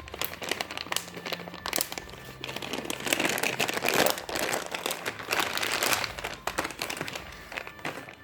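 Plastic packaging of squishy toys crinkling as it is handled, a dense run of quick crackles that is busiest and loudest about three to six seconds in.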